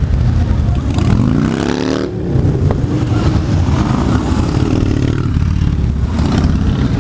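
A line of motorcycles riding slowly past one after another, their engines rumbling steadily. About a second in, one of them revs up, its pitch rising, then drops off sharply.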